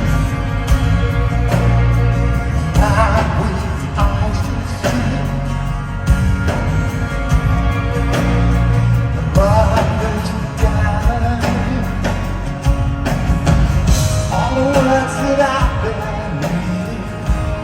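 Rock band playing live: a singer's lead vocal over a steady drumbeat, bass and guitars.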